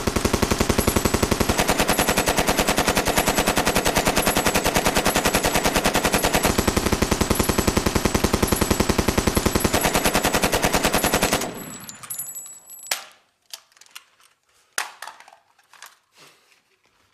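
Automatic rifle firing on full auto in one long, rapid, even burst lasting about eleven seconds, then stopping abruptly. A few scattered clicks and knocks follow.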